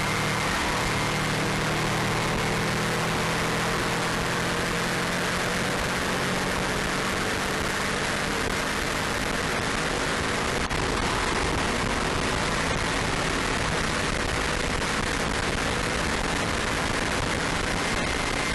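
Subaru Impreza WRX's turbocharged flat-four at speed on a circuit, mostly buried under a loud, steady rush of wind and road noise; the engine note is clearest in the first second.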